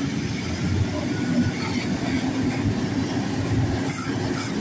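Large boat-stacking forklift running as it moves, a steady low mechanical rumble with a faint hum.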